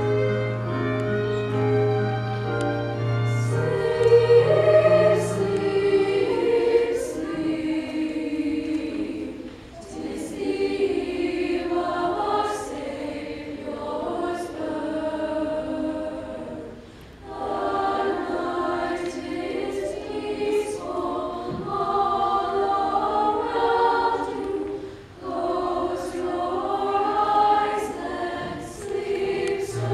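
Choir singing in long phrases with short breaks between them, over a low held note that stops about four seconds in.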